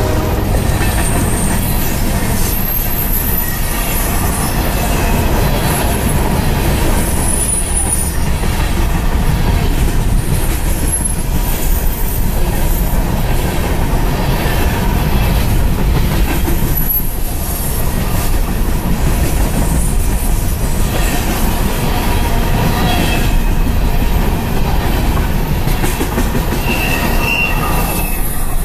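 Freight train of hopper cars rolling past close by: steady, loud rumble of wheels on rail, with brief high-pitched wheel squeals now and then.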